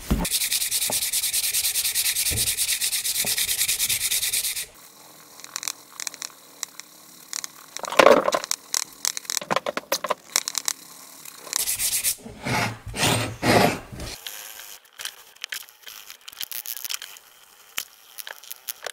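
Sandpaper rubbing on the steel head of a hatchet, hand sanding the flat sides to a shine. It opens with about four and a half seconds of loud, continuous fast scrubbing that stops abruptly, followed by shorter separate bursts of scraping strokes.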